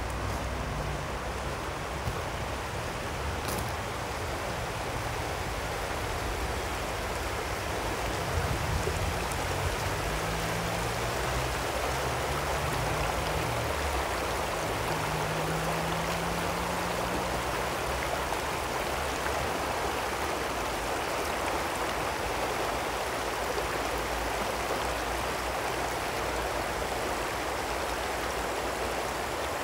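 Ak-Buura river water rushing steadily. A low rumble runs underneath and fades about two-thirds of the way through.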